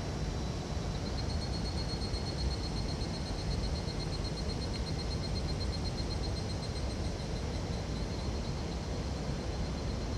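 Steady rushing of a mountain stream, with a high, rapidly pulsing insect call, typical of a summer cicada, running through most of it from about a second in.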